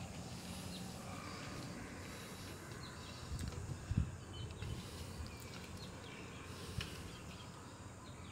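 Outdoor ambience of scattered faint bird chirps over a low steady rumble, with a few soft low thumps about three to four seconds in.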